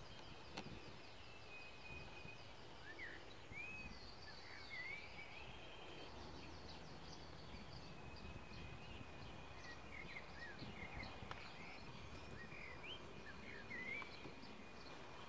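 Faint birdsong outdoors: several small birds giving short rising chirps and rapid high trills, with a long steady high note running through much of it. A single sharp click sounds about half a second in.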